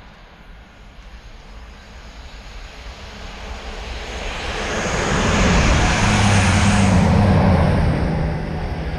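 A train approaching at speed on the main line and passing close by. Its rushing noise builds over several seconds to a loud peak with a low drone underneath, then eases slightly near the end.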